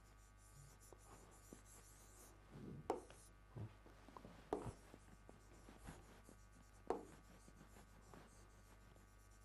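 Faint scratching and tapping of a pen writing on a board, with a few sharper taps of the pen against the surface.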